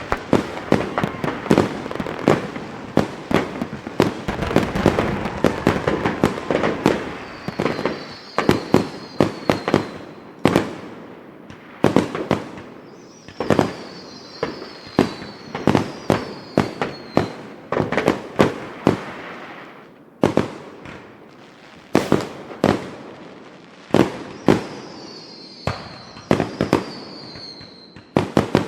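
Fireworks going off: a dense barrage of bangs and crackling, thinning to separate sharp bangs. Three times a high whistle falls in pitch over a few seconds.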